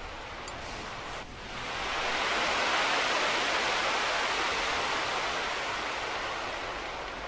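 A rushing, even hiss of noise, like static, that swells up about a second in, peaks a couple of seconds later and slowly fades: a film sound effect.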